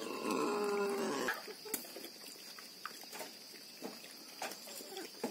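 An animal calls once, a loud pitched call lasting just over a second, followed by faint scattered clicks.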